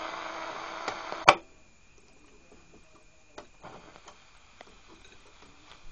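1965 FM transistor radio between stations: a steady tone over hiss, slowly fading, is cut off by a sharp click about a second in. After that there are only faint scattered clicks and a thin high whine as the dial is turned.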